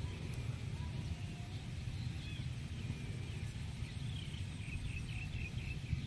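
Outdoor field ambience: a steady low rumble with scattered faint bird chirps and a quick run of chirps near the end, over a thin, steady high whine.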